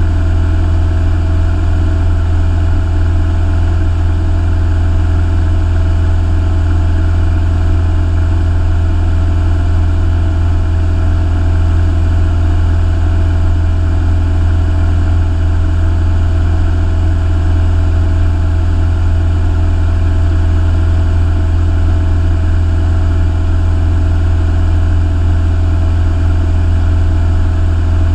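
Piston engine and propeller of a single-engine light aircraft running steadily in flight, heard inside the cockpit as an unchanging low hum with a stack of even overtones.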